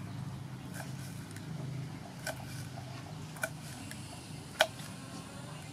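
Kitchen knife slicing red chilies against a wooden chopping board: sharp knocks of the blade on the board about once a second, the loudest near the end, over a low steady hum.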